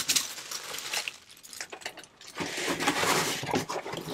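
Plastic wrapping crinkling and rustling as it is gripped and handled, with a quieter pause around the middle.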